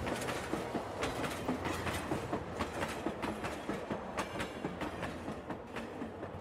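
A train running on rails, with a steady rumble and many quick, irregular wheel clicks over the track, slowly fading.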